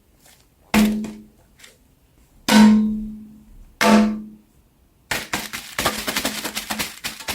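Percussive music: three separate struck notes, each with a low ringing tone that dies away, then from about five seconds in a quick run of dense clicking beats.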